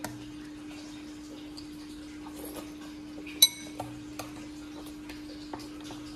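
Tableware clinking at a meal: a few light clicks and one sharp, ringing clink about three and a half seconds in, over a steady low hum.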